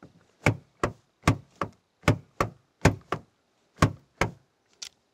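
Toyota Tacoma's exterior door handle pulled and let go about five times in quick succession, each pull a pair of sharp clacks as the handle swings out and snaps back. The door stays locked because the smart key fob's radio signal has been switched off.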